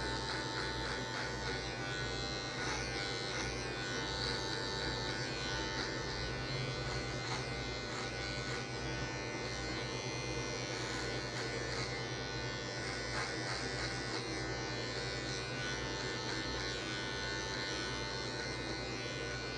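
Corded electric hair clipper fitted with a no. 2 guard, buzzing steadily as it cuts short hair on the side of the head.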